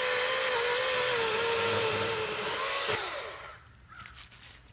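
Greenworks 40V cordless electric chainsaw cutting into a tree trunk for the felling notch: a steady motor whine whose pitch wavers slightly as the chain bites the wood. It stops about three seconds in, leaving only a few faint ticks.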